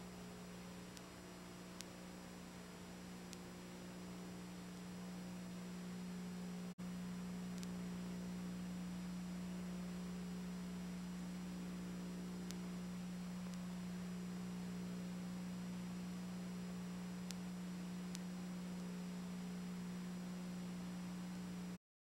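Steady low electrical hum with faint hiss, no game sound, breaking off for an instant about seven seconds in and stopping just before the end.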